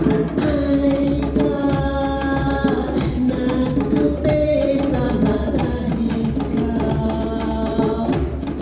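A choir singing an African song in held chords, with drums beating steadily along.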